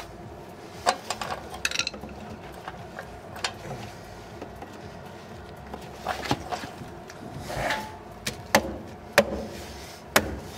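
A stuck plastic hubcap being tugged and pried at by hand on a wheel: a series of about ten sharp, irregular plastic clacks and knocks as the cap is worked but does not come off.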